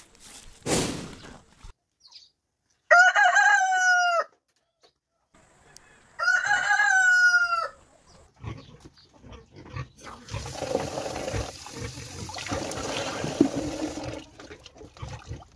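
A brief snort close to the microphone, then two rooster crows a few seconds apart, each lasting over a second. Then, from about ten seconds in, water running from an outdoor tap into a plastic bucket, for about four seconds.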